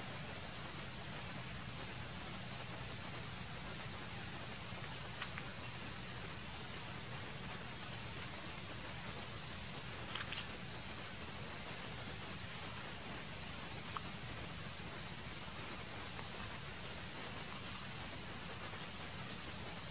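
Steady high-pitched insect chorus droning without a break, with a few faint ticks scattered through it.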